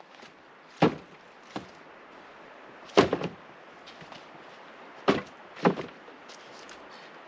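Five sharp knocks at irregular intervals, the loudest two about three and five seconds in.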